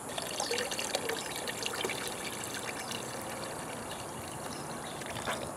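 Water sloshing and trickling with small splashes as a gold pan is dipped and worked in a plastic tub of water, panning down fine gold concentrate. The splashing is busiest in the first two seconds.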